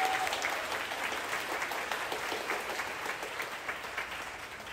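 Audience applauding, many hands clapping, the applause thinning and dying down near the end.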